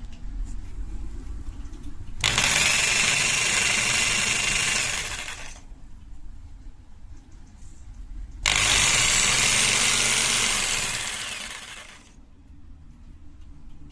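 Hitachi CJ65VC electronic jigsaw run twice in short bursts of about three seconds each. Each run starts abruptly and then winds down over about a second as the motor coasts to a stop.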